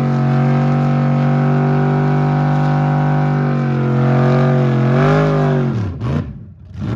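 Pickup truck engine held at high, steady revs in a burnout, the rear tyre spinning in smoke with a rushing hiss. About four seconds in the revs waver, and near the end they fall away as the engine comes off the throttle.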